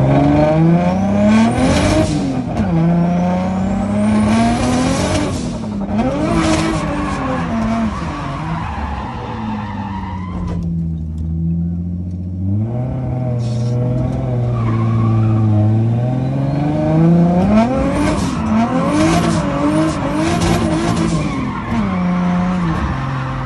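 A drift car's engine revving up and down with its tyres screeching through slides. Near the middle the tyre noise stops for about two seconds while the engine holds a steady note, then the revving and screeching start again.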